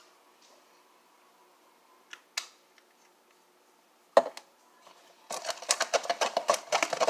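A few light clicks and a sharp knock, then dense rapid clicking and scraping from about five seconds in as glue slime is stirred in a bowl.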